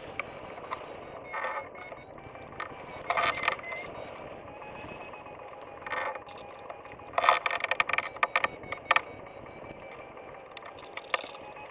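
Steady wind rush on the camera microphone of a hang glider in flight, broken by several short bursts of rattling buffeting, the busiest about seven to nine seconds in.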